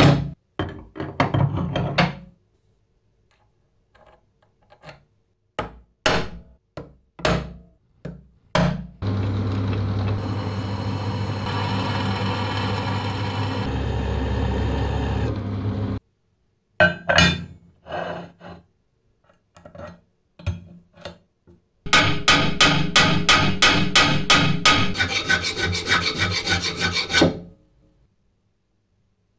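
Several workshop sounds in turn. First, steel plates are set down and clatter, with scattered knocks. Next, a milling cutter runs steadily, cutting into a steel plate, for about seven seconds. Near the end come quick, rhythmic rubbing strokes, about four a second, for some five seconds.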